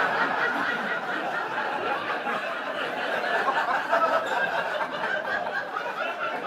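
Audience laughing together in a sustained wave, easing off slightly toward the end.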